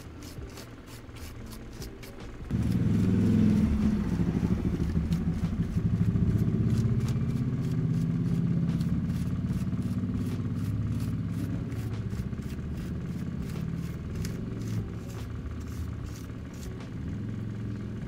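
A motorcycle engine starts abruptly about two and a half seconds in and keeps running at a low, steady idle, slowly getting quieter toward the end.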